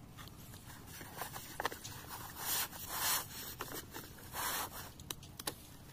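Thin flexible plastic irrigation pipe (4-inch lay-flat type) being handled and dragged on sand: crinkly rustling and scraping in a few short bursts around the middle, with small ticks in between.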